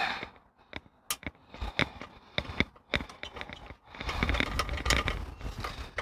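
Hands and tools working at an e-bike's mechanical disc brake caliper: a handful of sharp separate clicks of small metal parts, then a denser stretch of rubbing and scraping in the last two seconds.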